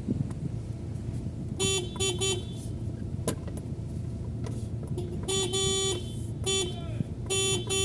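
Car horn sounding in a series of short toots: three quick ones, then a longer blast and two more short ones. This is the horn being tested after its horn pin has been replaced, showing it working again.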